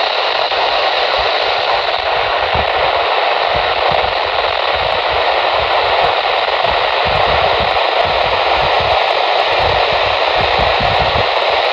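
Steady, loud static hiss from a NOAA Weather Radio receiver, with no voice or alert tones coming through.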